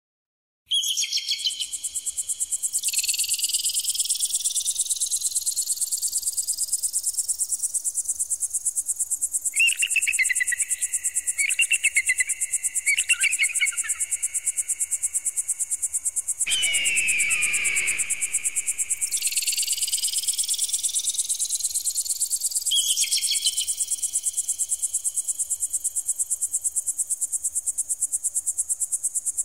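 Electronic bird-repeller sound meant to drive off pigeons. A high, rapidly pulsing shrill tone runs throughout with repeated rising sweeps. It is broken by bursts of chopped chirping tones about a third of the way in, and by one falling screech just past the middle.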